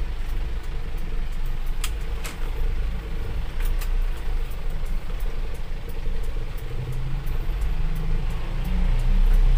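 Isuzu Elf Giga minibus's diesel engine running from inside the cab as it pulls away slowly, with the engine note rising near the end. A few sharp clicks in the first four seconds.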